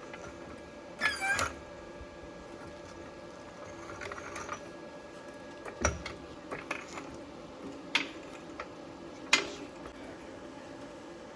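Occasional metallic clinks and knocks from steel being handled, with a short scraping clatter about a second in and single sharp hits later, over a faint steady hum.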